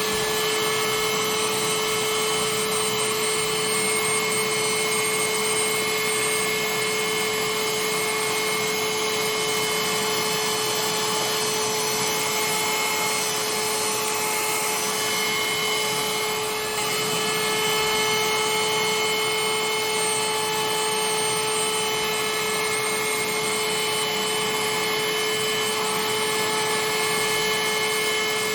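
Parkside PHSSA 20-Li D2 cordless hand-held vacuum cleaner running steadily, a constant whine over a rush of air, with a brief dip in level about two-thirds of the way through.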